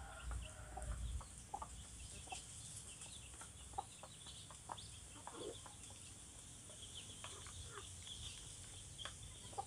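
Quiet yard ambience with chickens clucking faintly in the background, and scattered small rustles and clicks from hands working potting soil around a seedling in a plastic basket.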